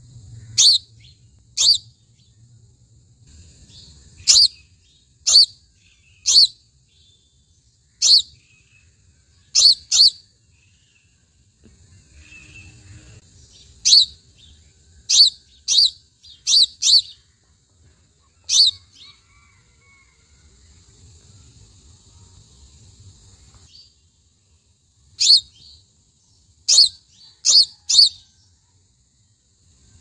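House sparrow giving single sharp chirps, about eighteen in all at uneven intervals, some in quick pairs, with longer pauses near the middle and about two-thirds of the way through.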